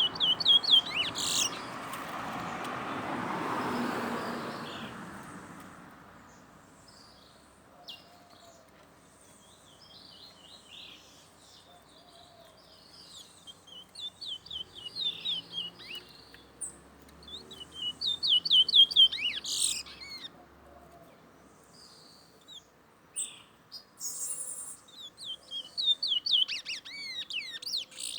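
Towa-towa seed finch singing in bursts of rapid, high twittering notes, each phrase a quick run of falling notes, with pauses of several seconds between phrases.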